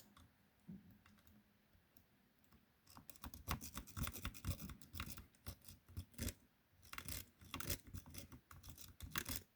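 Lock picks working a 40 mm Mi-Lock padlock's pin-tumbler cylinder. After about three seconds of near silence come irregular metal clicks and short scrapes as the pick is worked against the pins. The attempt is not setting anything.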